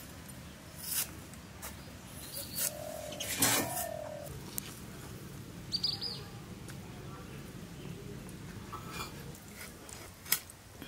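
Scattered sharp clicks and taps of cutting on a bonti blade, slicing onions and then raw chicken pieces into a steel bowl, with a bird chirping briefly about halfway through.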